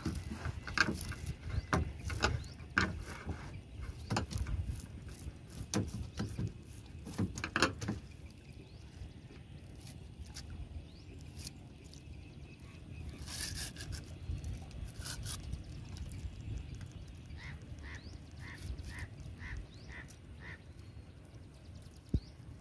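Close clicks and knocks from handling aboard a small boat for about the first eight seconds, then a bird calling a quick run of about seven short notes, roughly two a second.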